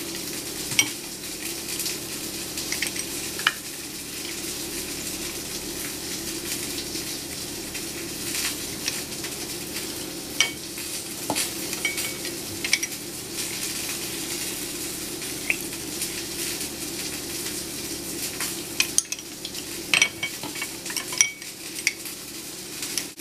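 Hand-held lime squeezer at work on lime halves: scattered clicks and knocks as it is pressed and the spent halves are set down, busiest near the end, over a steady hiss and hum.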